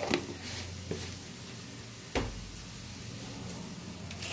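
A few light clicks and knocks of a spoon and bowls being handled while spices go into raw chicken, with a sharper knock and dull thump about two seconds in, over a faint steady low hum.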